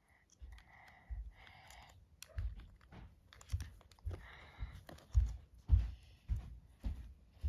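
Close handling noise of plastic toys and packaging: a run of low knocks about twice a second, with clicks and rustles between them.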